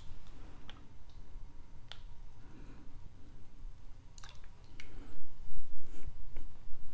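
Scattered soft clicks and taps of a small glass Tabasco sauce bottle and a metal measuring spoon being handled while the sauce is shaken out into the spoon. The clicks grow busier and louder near the end.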